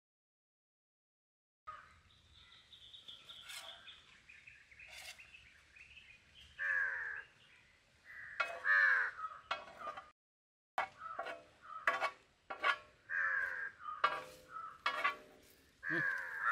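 Birds calling: an irregular run of short calls, some falling in pitch, starting after about a second and a half of silence.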